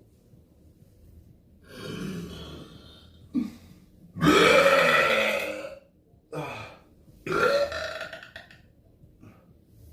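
A person burping deliberately, three long drawn-out belches in a row with short ones between. The loudest comes about four seconds in and lasts over a second and a half.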